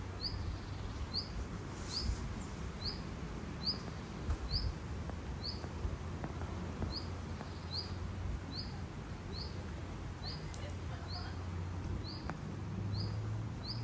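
A small bird repeating one short, high, rising chirp about once a second, pausing once midway, over a steady low hum of outdoor background noise.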